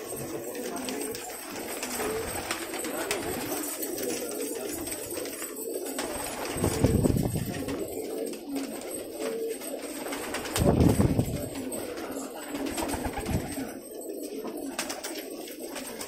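A crowd of Banarsi fighter pigeons cooing together in a crowded loft. Two louder flurries of wing flapping come about seven and eleven seconds in.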